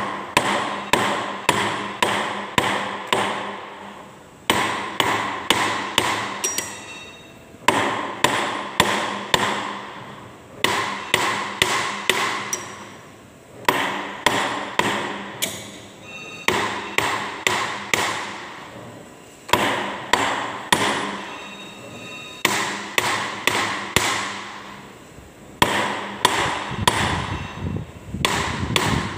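Hammer striking the steel of a trimming die set, in runs of quick blows, about three a second, with short pauses between runs. Each strike rings metallically.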